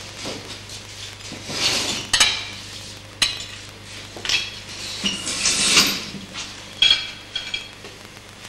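Plates and cutlery clinking and knocking on a wooden table as a waiter sets it: a handful of separate sharp clinks, some ringing briefly, with softer rustling between them.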